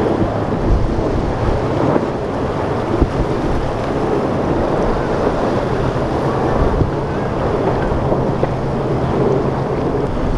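Wind buffeting the microphone and waves washing in choppy water, with the steady drone of a center-console boat's outboard engines running past.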